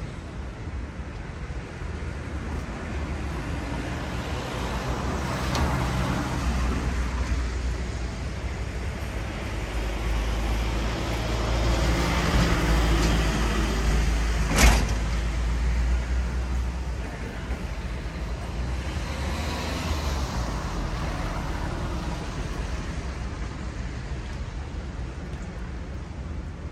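City street traffic: a heavy vehicle's low engine rumble swells as it passes close, loudest a little before halfway, then fades. A single sharp knock comes just past the middle.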